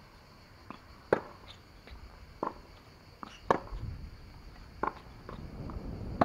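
Tennis rally on a hard court: sharp pocks of the ball struck by rackets and bouncing, about one every second or so, the nearer player's strikes loudest. A low rumble builds in the second half.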